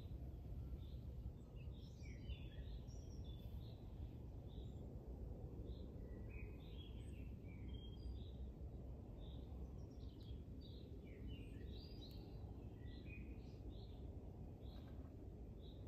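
Several small birds chirping and singing in short, scattered calls over a steady low rumble of outdoor background noise.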